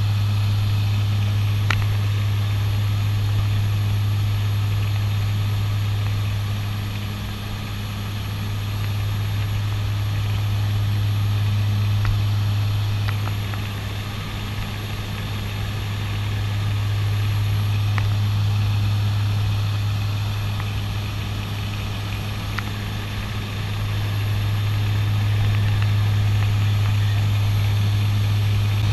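Twin turboprop engines and propellers of a CASA NC-212-200 Aviocar heard from inside the cockpit: a steady drone with a strong low hum that slowly swells and fades a few times. A few faint clicks sound over it.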